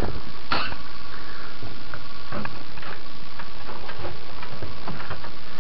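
Handling noise from a handheld camera being moved around a boat's console: a few light knocks and taps over a steady hiss, with a faint steady tone for the first couple of seconds.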